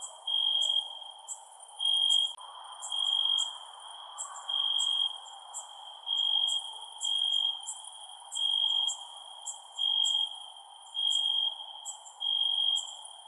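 Crickets chirping. One loud cricket repeats a short, steady, high trill about once a second, over fainter, higher-pitched chirps from other insects and a low steady hiss.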